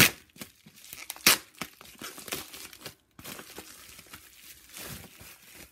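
Plastic bubble-wrap packaging crinkling and tearing as hands unwrap it, with two sharp loud crackles at the start and about a second in, then softer rustling.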